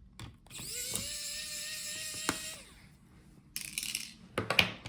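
Electric precision screwdriver spinning up and running steadily for about two seconds as it backs out a laptop heatsink screw. A few light clicks and rattles of small parts being handled come near the end.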